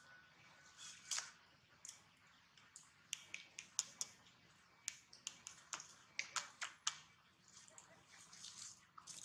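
Macaque foraging in dry leaf litter and chewing, giving a quick run of sharp clicks and crackles that is thickest in the middle, then softer rustling near the end.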